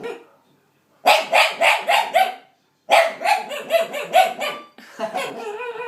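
Dog making strange barking noises in two quick runs of about four a second, then a wavering whine near the end, which the owner puts down to the dog being unnerved by a child staring at him.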